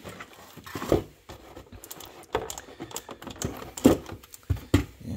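Irregular clicks, knocks and scrapes of hands working a white foam packing insert and a boxed model car out of a cardboard box, with the sharpest knock about four seconds in.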